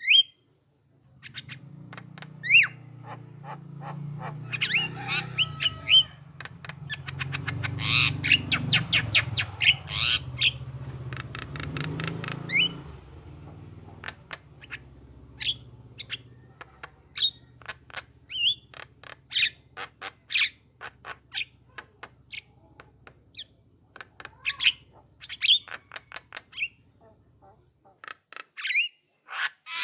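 Javan myna (jalak kebo) calling: a string of sharp, gliding whistles and squawks, with a burst of fast chattering about a third of the way in. A low hum runs under most of it.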